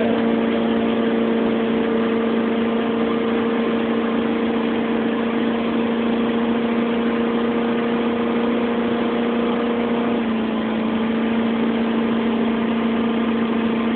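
Motorboat engine running steadily at high speed while towing a tube, a constant drone over a rushing noise; the drone's pitch holds level, easing slightly about ten seconds in.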